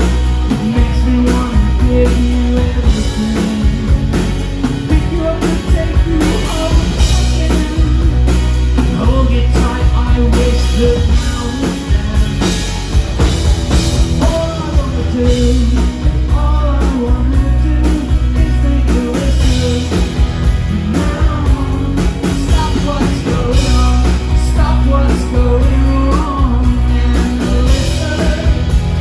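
Live rock band playing with a male lead vocal: guitars, bass and drum kit, recorded loud from the audience.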